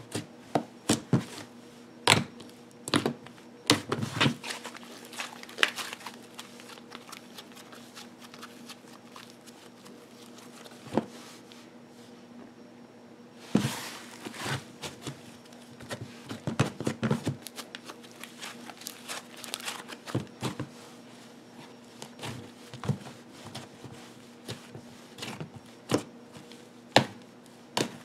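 Hands squishing, pressing and stretching a soft blue slime, giving irregular sticky pops and crackles. A brief lull comes about halfway through. The slime is a little sticky.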